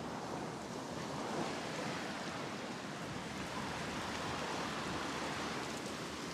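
Sea surf washing gently on the beach, a steady even hiss.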